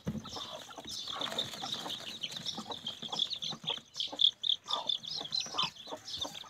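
A brood of aseel chicks peeping: many short, high chirps overlapping.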